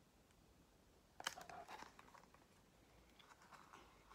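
Near silence, broken about a second in by a faint tap and a short rustle of a picture book's paper pages being handled.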